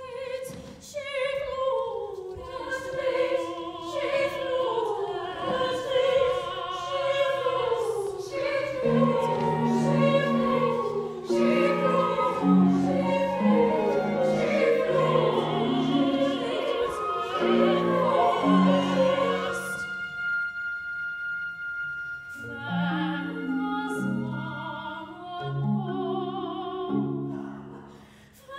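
Live chamber-opera music in a Scottish style: a woman's voice singing over a small instrumental ensemble with a fiddle. Quick running notes give way to a steadier beat, with a long held high note about two-thirds through.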